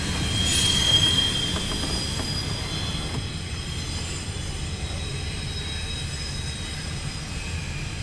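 CSX intermodal freight train of double-stack container cars rolling past: a steady low rumble of wheels on rail with a thin, high-pitched wheel squeal, loudest about a second in, heard from inside a car.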